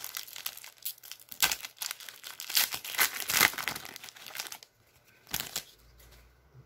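Foil trading-card pack being torn open and its wrapper crinkled in the hands: dense crackling that stops about four and a half seconds in, followed by one brief rustle.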